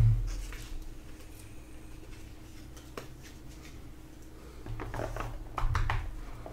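Faint handling of a sealed trading-card box and its packaging: a few light taps and clicks, then a louder patch of bumping and rustling about five seconds in.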